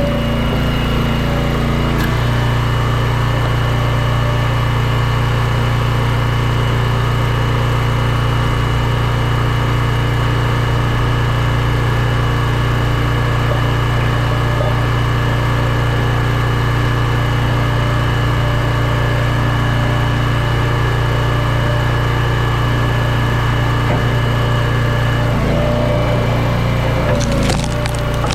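Small gas engine of a firewood log splitter running steadily, its note changing about two seconds in and again near the end.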